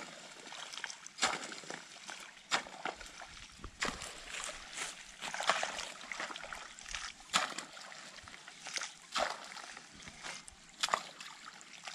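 A hand spade working wet, watery soil: irregular splashing scrapes, one every second or two.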